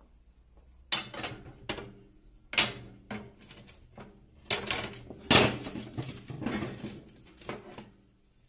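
Steel vehicle leaf springs clanking against each other as they are lifted and shifted in a pile: a series of sharp metal clanks, some with a brief ringing tail.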